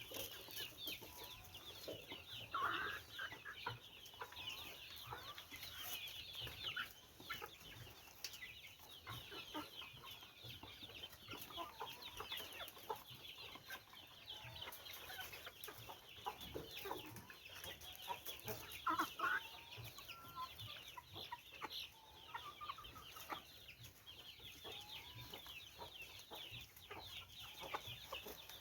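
A brood of Bangkok chicken chicks peeping continuously, many short high falling chirps overlapping. A few louder, lower calls stand out, about three seconds in and again around nineteen seconds.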